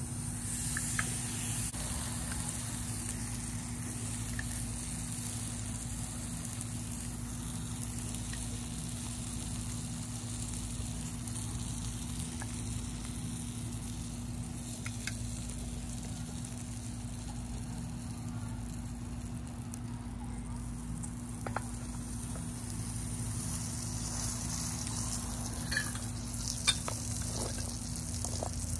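Steady sizzling of food in a hot pie iron sprayed with cooking oil, with a few sharp clicks near the end.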